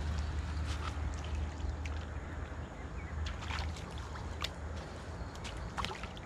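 A hooked taran (a Black Sea roach) being drawn through the shallows to the bank, splashing and slapping at the surface in a series of short splashes. The sharpest come about three and a half and six seconds in. Under them runs a steady low rumble.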